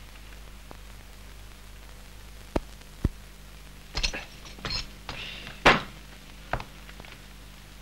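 Scattered knocks and thuds of a wooden chair being handled and set down, with a sharper, louder bang about three-quarters of the way through, over a steady low soundtrack hum.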